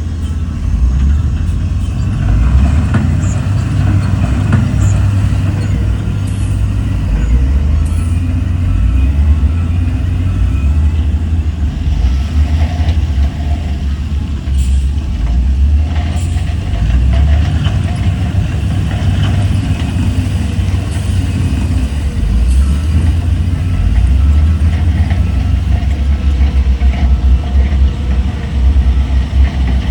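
Heavy diesel construction machinery running loud and steady under load, a deep rumble with occasional short metallic clanks and clicks.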